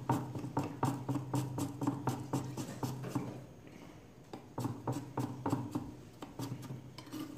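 Kitchen knife chopping ginger on a wooden chopping board: quick, uneven knocks of the blade against the board, a few per second, with a short pause near the middle. A low steady hum runs underneath.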